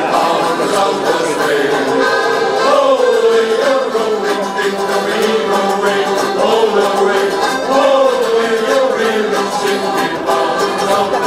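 A shanty choir singing.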